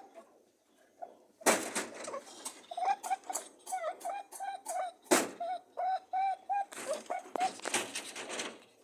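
Mating rabbits honking: a quick run of short, arched, buzzing notes, several a second, broken by a few sharp noisy bursts, the loudest about a second and a half in and about five seconds in.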